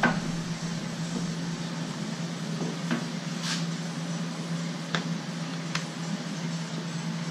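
A steel drawer slide being handled and set down on a plywood panel, giving about five short metallic clicks and clinks spread across a few seconds, over a steady low hum.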